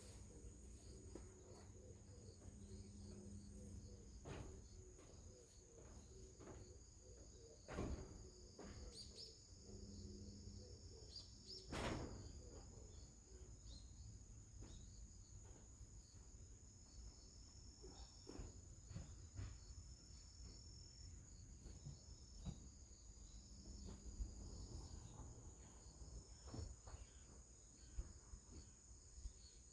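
Near silence with faint outdoor ambience: a steady high-pitched insect trill throughout, and two sharp knocks about eight and twelve seconds in.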